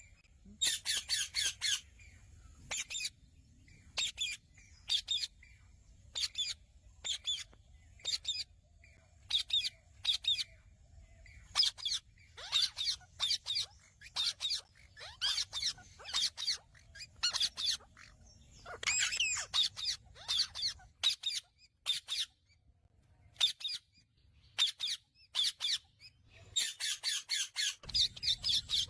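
Indian ringneck parakeet calling: short, harsh, high-pitched screeches, some single and some in quick runs, with brief pauses between them.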